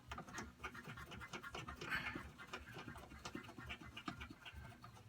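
Faint, scattered clicks and rustles of hands fitting and straightening a part on a snow blower.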